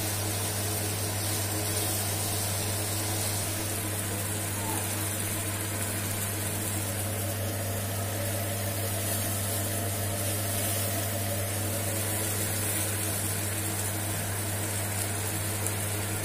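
A steady low machine hum with a faint hiss, holding an even level throughout.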